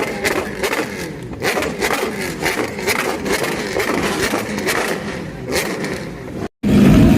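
Bamboo cannons going off again and again, sharp bangs at irregular intervals and varying distance, over a background of engines running. A sudden break near the end gives way to a louder, deeper rumble.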